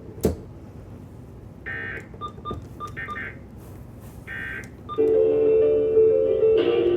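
Emergency Alert System end-of-message signal: three short buzzing digital data bursts a little over a second apart. A louder steady tone with several pitches follows from about five seconds in.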